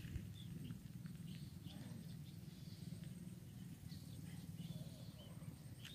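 Outdoor ambience: a fluttering low rumble of wind on the microphone, with scattered faint short bird chirps.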